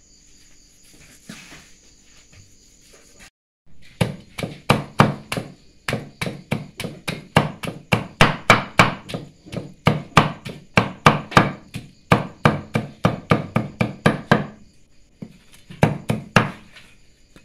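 Large kitchen knife chopping cooked buffalo meat on a round wooden chopping board: quick, regular strikes about four a second, starting a few seconds in, with a short pause near the end before a few more chops.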